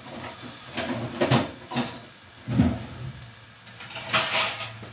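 Several short knocks and scrapes, spaced apart, then a steady low hum near the end.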